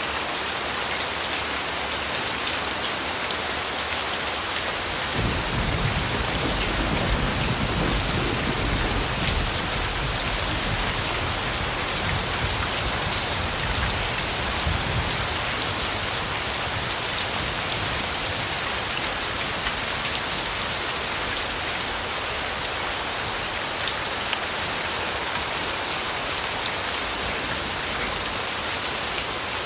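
Steady rain falling, a dense even hiss of drops on a surface. About five seconds in, a low rumble of thunder rolls in and fades away over the next ten seconds or so.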